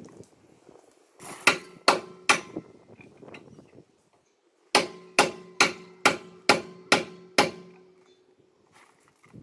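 Hammer blows on a rounded, broken lug nut seized on a Toyota Supra wheel, metal ringing after each hit. A quick run of about five blows, a pause, then seven more in a steady rhythm.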